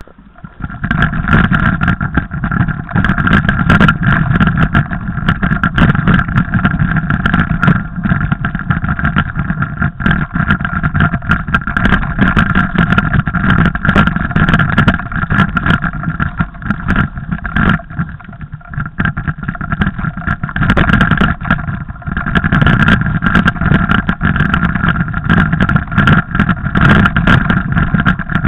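Mountain bike being ridden over a snowy trail, heard through its camera: a loud steady rush of wind on the microphone with constant rattling and clatter from the bike. It starts about a second in and dips briefly past the middle.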